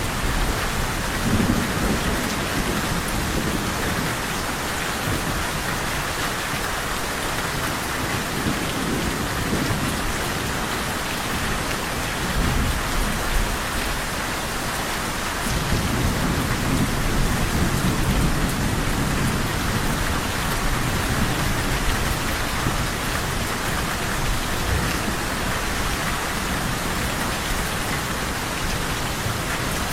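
Steady heavy rain falling, with low rolling thunder: a short rumble near the start and a longer one from about halfway in.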